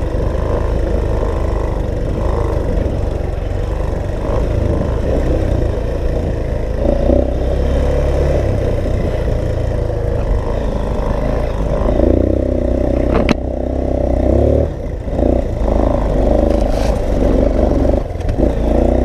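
Dirt bike engine running on a trail ride, its speed rising and falling as the throttle is worked, under heavy wind rumble on the microphone. One sharp knock about thirteen seconds in.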